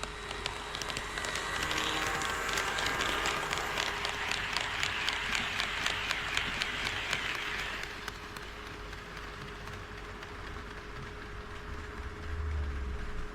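HO scale model train running past on KATO Unitrack, its wheels clicking rapidly over the rail joints; the running noise builds to its loudest about four to seven seconds in and fades by about eight seconds. A brief low rumble near the end.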